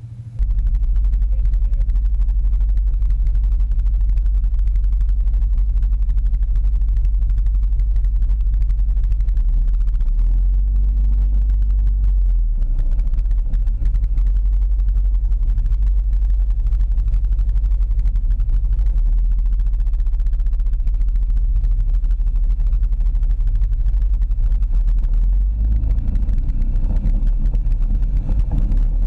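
An ATV is driving along a muddy trail. The camera mounted on its front rack picks up a loud, steady, low rumble from the running machine, which starts abruptly as it sets off.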